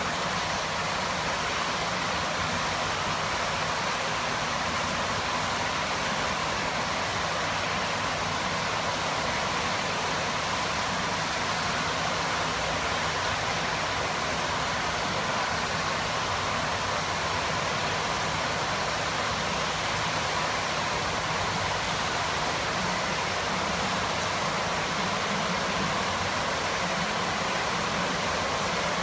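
Steady rushing of an indoor pool's circulating water, with a faint low hum underneath that stays constant throughout.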